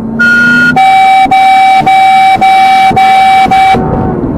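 Loud vehicle horn sounded in quick repeated blasts: a brief higher tone, then about six half-second blasts of a lower steady tone with short gaps between them.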